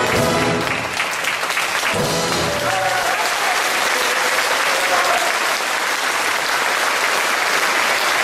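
A theatre audience applauding over an orchestra playing ballet music. The music stops about three seconds in and the applause carries on alone.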